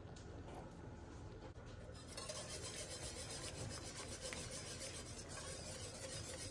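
Wire whisk stirring thick gravy in an enameled cast iron pan, starting about two seconds in: a rapid, steady scraping and swishing of the wires against the pan.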